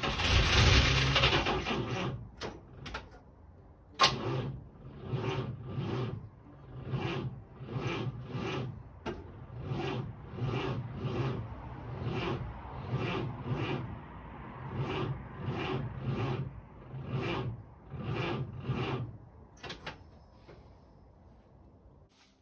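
1946 Chevrolet Fleetmaster's straight-six engine being cranked by its 6-volt starter motor, turning over slowly in a labouring rhythm of about two strokes a second without firing, then stopping near the end. It opens with a loud rasping burst as the starter engages. The owner calls the starter terrible.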